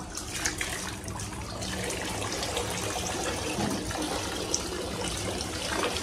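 Water running from a garden hose and splashing over a person's head and into a paddling pool: a steady rush of water that grows a little louder after about a second and a half.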